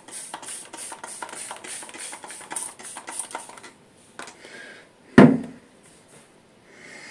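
Water splashed onto the face by hand: a quick run of wet splashes for about the first three and a half seconds. This is followed by scattered clicks and a single loud thump about five seconds in.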